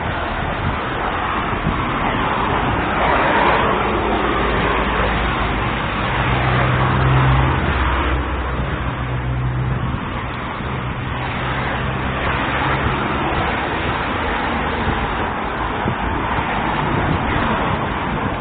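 Street traffic: cars passing one after another as slow swells of tyre and engine noise, with a low steady engine hum for a few seconds in the middle.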